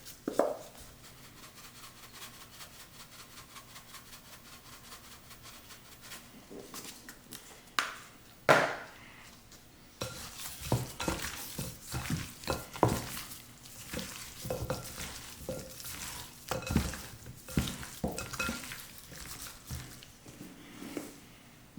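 Seasoned raw chicken wings being mixed and tossed in a bowl, with irregular knocks and clinks of the bowl and utensils, busier in the second half.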